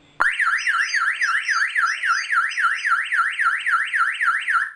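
Tomahawk 7.1 car alarm siren sounding, a loud warble sweeping rapidly up and down in pitch about four times a second, then cutting off abruptly near the end as the alarm is disarmed.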